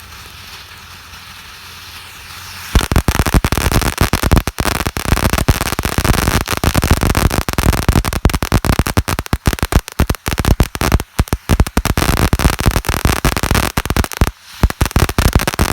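Firecrackers going off in a long, loud, rapid string of bangs that starts suddenly about three seconds in, after a quieter stretch of hiss, with a brief pause near the end before the bangs start again.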